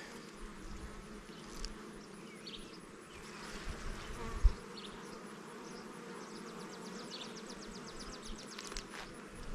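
Honey bees buzzing around an open hive, a steady hum, with one short low thump about four and a half seconds in.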